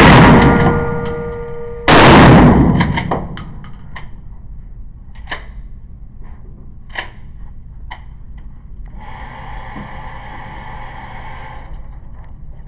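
Two shotgun blasts echoing loudly off the concrete of an indoor range, the first just at the start and the second about two seconds in, each with a long decaying boom. Small clicks of gun handling follow, then a steady motor whine for a couple of seconds near the end as the target carrier runs the paper target back up the lane.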